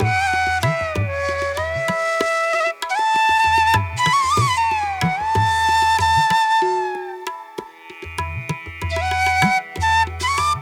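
Instrumental background music: a flute-like melody of long notes that glide up and down, over a low hand-drum pattern that comes in and drops out in stretches.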